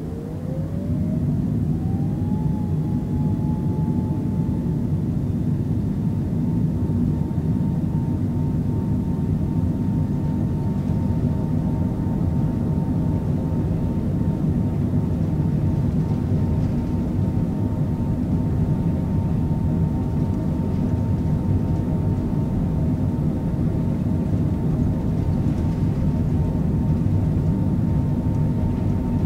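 Boeing 767 jet engines spooling up to takeoff thrust, heard from inside the cabin: a whine rises in pitch over the first couple of seconds, then holds steady over a loud, even rumble.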